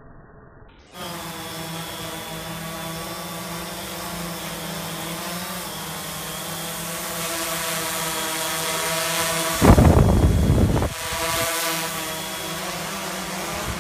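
Quadcopter drones hovering, their propellers giving a steady buzzing hum with many evenly spaced overtones that waver slightly in pitch; the buzz cuts in about a second in. About ten seconds in, a loud low rush of noise covers it for about a second.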